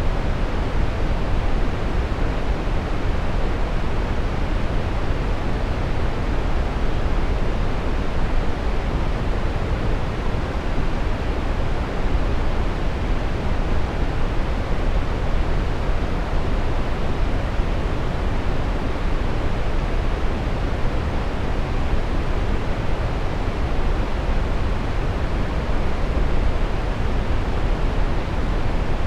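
Brown noise: a steady, even rumbling hiss with its weight in the low end, unchanging throughout.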